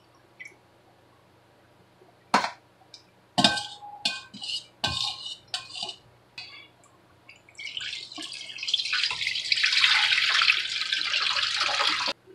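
Several light metal clinks and knocks of a stainless mesh strainer and mixing bowls being handled, then chicken brine poured through the strainer over the wings, splashing steadily into the steel bowl below for about four seconds before cutting off.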